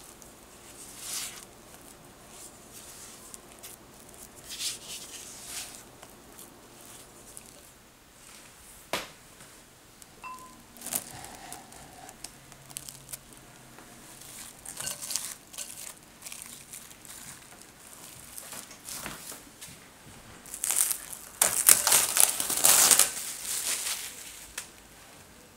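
A spatula working sticky sesame bread dough in a glass bowl, giving scattered short scrapes and squishes. Near the end there is a loud crinkling rustle lasting a few seconds.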